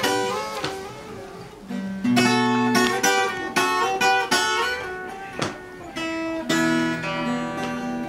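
Acoustic guitar playing the introduction to a Russian Roma (Gypsy) song: strummed chords with single plucked notes ringing between them.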